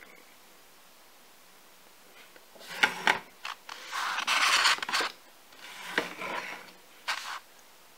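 Close-up handling noises: sharp clicks mixed with stretches of rubbing or scraping, starting about three seconds in, loudest in the middle and ending with a last click or two near the end.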